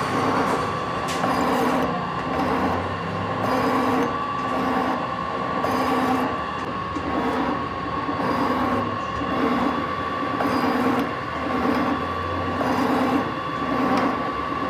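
Metal lathe running while cutting a groove in a taper coupling: a steady high whine over machine noise, with a pulsing rhythm about once a second.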